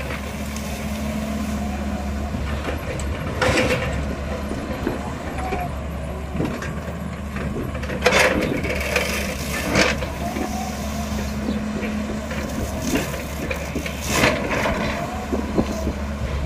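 Excavator diesel engine running steadily, with a hydraulic whine that rises and falls as the arm works. About four times, loud crackling crunches come as sugarcane stalks are grabbed and snapped.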